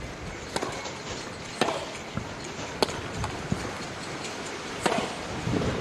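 Tennis ball impacts, sharp single pops about a second apart, from racket strikes and bounces on the grass court, over a low hum of crowd and wind.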